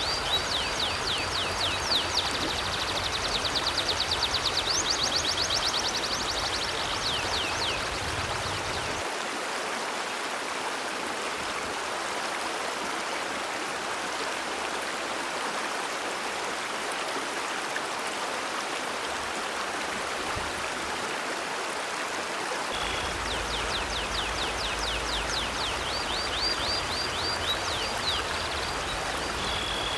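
River water flowing steadily. A bird chirps rapidly in a long run of quick falling notes for the first several seconds, and again from about three-quarters of the way through.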